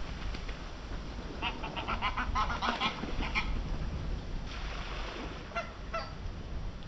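Waterfowl calling on a pond: a quick run of short calls starting about a second and a half in, then a few single calls later on, over a steady low background rumble.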